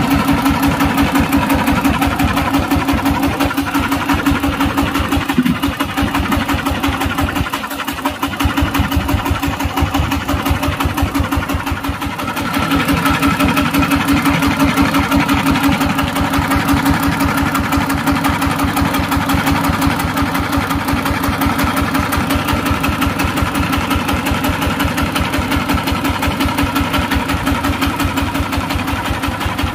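Changfa 1115 single-cylinder diesel engine running at a steady speed, its firing pulses coming in an even rapid beat. The sound dips briefly about eight seconds in, then runs on a little louder and steadier from about twelve seconds.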